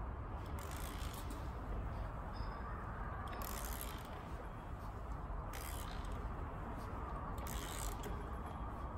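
Hand ratchet clicking as it runs down the crank pulley bolt, in short spells every two seconds or so.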